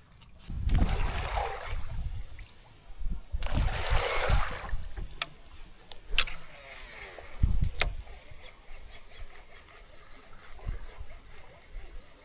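Water swishing and splashing around a kayak in two bursts of about a second each, with low knocks on the hull, then a few sharp clicks.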